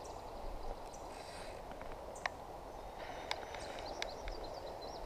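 Quiet stream-side ambience: a steady faint rush with faint bird chirps in the second half, and a few sharp, faint ticks as the fly line is handled while playing a hooked fish.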